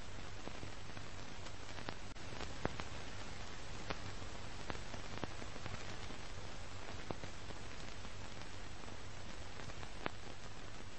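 Steady hiss over a low hum, with a sharp click or pop every second or two, like the surface crackle of an old film soundtrack.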